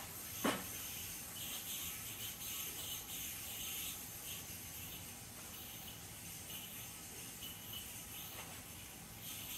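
An MVP metal yoyo spinning, its string whirring and rubbing faintly during tricks, over steady microphone hiss. About half a second in there is one sharp snap with a quickly falling whir.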